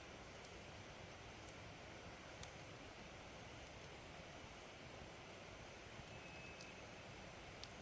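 Wood fire of a big log burning in a Coleman Fire Disc fire pit: a faint steady hiss with a few sharp crackles.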